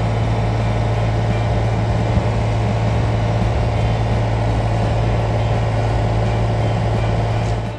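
Yanmar ViO35-6A mini excavator's diesel engine running loud and steady at constant speed, cutting off abruptly near the end.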